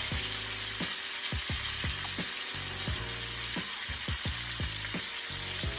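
Flour-dredged chicken thighs frying in hot oil in a wok: a steady, dense sizzle.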